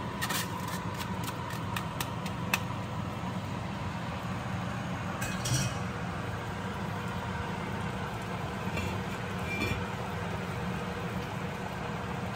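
Metal mesh strainer tapped rapidly against the rim of an enamelled pot, a quick run of clinks in the first few seconds as rice is knocked into hot water, then a short clatter about five seconds in, over a steady low hum.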